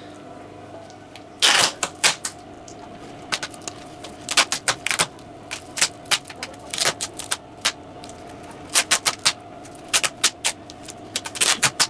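Duct tape being pulled off the roll in short, irregular rasping rips as it is wound around a bandsaw wheel.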